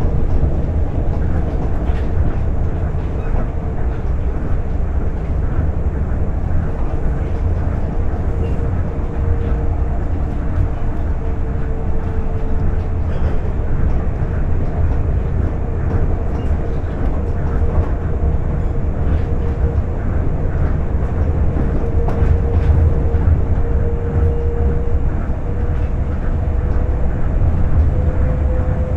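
Tokyo Monorail train running at speed, heard from inside the car: a steady low rumble of its rubber tyres rolling on the concrete guideway beam, with a single steady whine that rises a little near the end.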